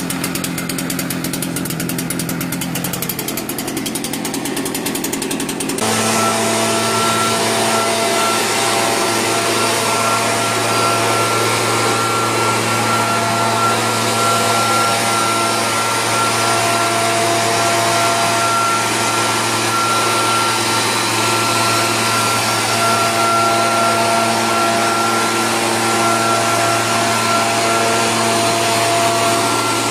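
Oleo-Mac MB90 backpack power mist blower, its small two-stroke engine running at a lower speed. About six seconds in it jumps abruptly to a louder, steady high-speed run, the engine and blower fan whining as it blows spray mist.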